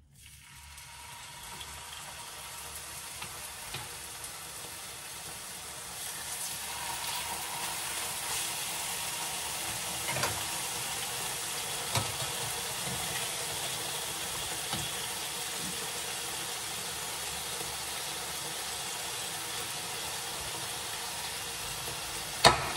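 Chicken fillets frying in a hot pan, a steady sizzle that builds over the first few seconds and then holds level. A few faint utensil clicks, and a sharp clack near the end.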